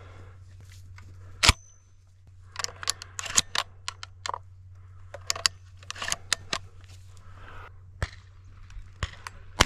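Two close shotgun shots, one about a second and a half in and one right at the end, with clicking and rustling between them.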